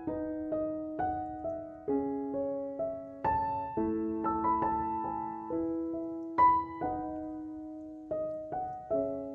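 Background piano music: a slow melody of single struck notes over held chords, about two notes a second, each left to ring and fade.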